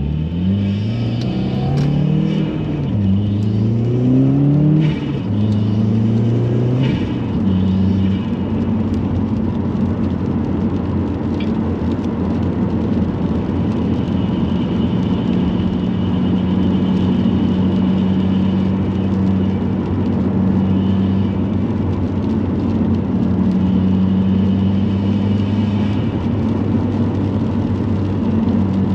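2018 Subaru WRX's turbocharged 2.0-litre flat-four, breathing through a GrimmSpeed cast-aluminium turbo inlet, accelerating through the gears: the engine note rises, drops at a shift, rises again twice over the first several seconds, then settles into a steady cruising note.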